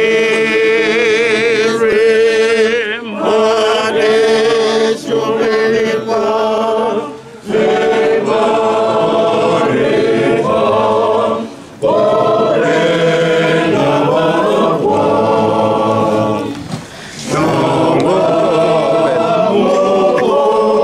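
A church choir of men singing a Sepedi hymn a cappella, phrase after phrase with short breaks for breath between them. A high, wavering voice stands out in the first few seconds.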